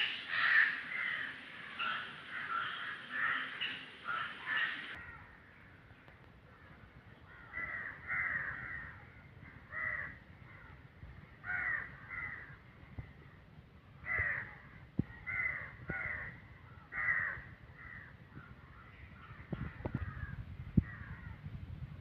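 Crows cawing, harsh calls repeating every second or so, close together for the first five seconds and more spaced out after that. Near the end a low rumble and a couple of sharp knocks come in under the calls.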